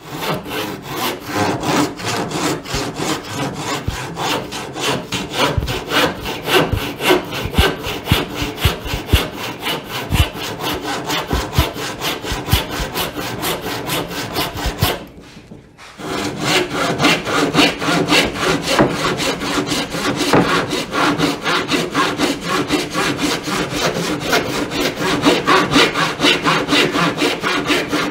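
A dull crosscut handsaw cuts through a wooden board with steady back-and-forth strokes, pausing briefly about halfway through. The blunt teeth make the cut go slowly.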